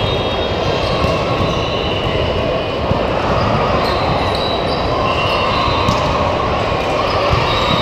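Echoing din of a large gym hall with several volleyball games going on: volleyballs being hit and bouncing on the hardwood floor over a steady murmur of players and spectators, with a sharp knock now and then.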